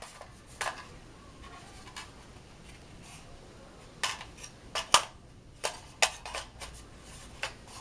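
Scattered sharp metallic clicks and clacks from handling an assembled AR-15 rifle, the loudest about five seconds in.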